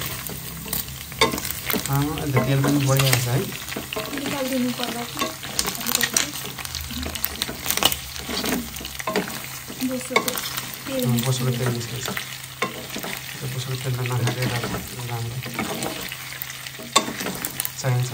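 Pork chunks sizzling in a nonstick wok while a wooden spatula stirs and turns them, with frequent scrapes and knocks of the spatula against the pan.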